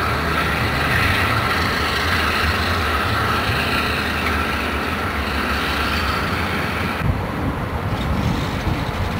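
Diesel switcher locomotive running as it moves slowly along yard track, a steady low rumble under a hiss. The hiss cuts out about seven seconds in.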